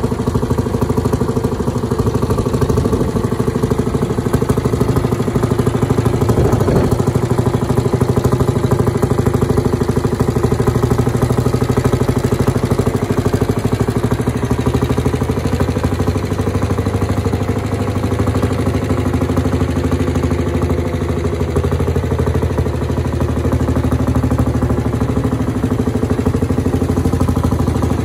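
Lanz Bulldog D7508 orchard tractor's single-cylinder two-stroke hot-bulb engine idling steadily with an even, rapid beat, on its first firing while still unrestored.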